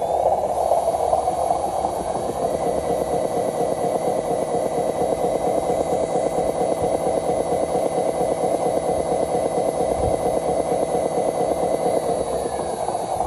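Radio-controlled Hino 500 tractor-trailer model driving under load with an engine-like rumble made of rapid, even pulses. Over it a motor whine climbs over the first two seconds, holds steady, then drops away near the end.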